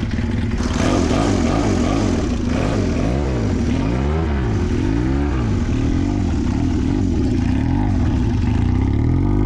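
Honda CB400 motorcycle engine running just after its first start, revved three times in quick succession about three to five seconds in, then settling back to a steady idle.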